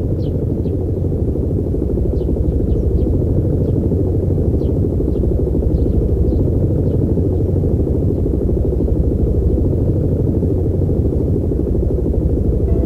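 Airship's engines and propellers droning steadily overhead, a dense low rumble, with faint bird chirps in the first half.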